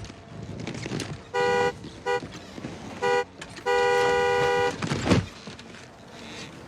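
Car horn honking: three short blasts, then one long blast of about a second. A thump follows shortly after.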